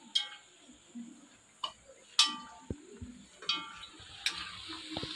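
A metal spoon clinking against an iron wok (cheenachatti) as banana fritters are stirred in hot oil: a string of sharp clinks spaced a half to one second apart, several with a short metallic ring, over a faint sizzle of frying.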